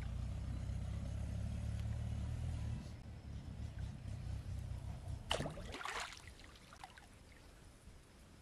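A low rumble for the first three seconds, then, about five seconds in, a brief splash of water as a hooked fish is pulled up out of the pond on a fishing line.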